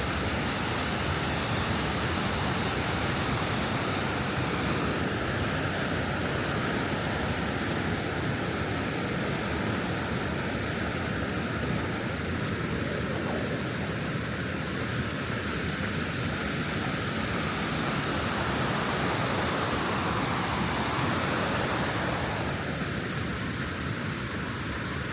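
High, muddy river rushing over rocky shoals and small falls, a steady even roar of moving water.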